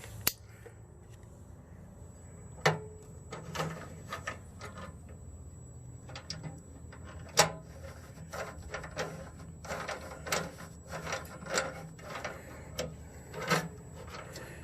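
Handling noise from working on the step mechanism: a few single sharp knocks and clicks, then from about halfway through a run of quicker clatter and rubbing, over a faint steady low hum.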